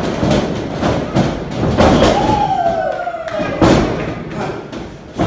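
Repeated heavy thuds of a pro wrestling match, bodies and blows landing, over crowd noise, with a long falling yell about two seconds in.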